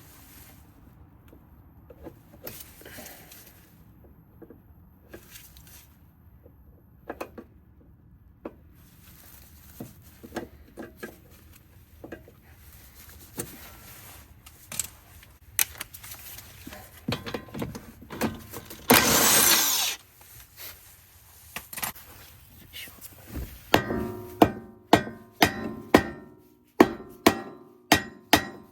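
Hammer blows on metal: scattered tool clinks and knocks, a loud hiss lasting about a second past the middle, then steady ringing hammer strikes, about two a second, in the last five seconds, from work on the front CV axle and hub.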